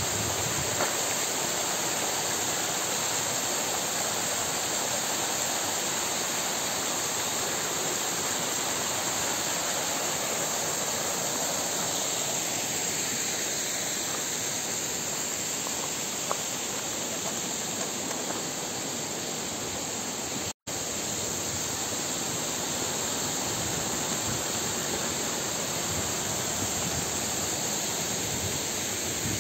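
Small waterfall splashing down rock ledges: a steady, even rush of falling water, with a momentary dropout about two-thirds of the way through.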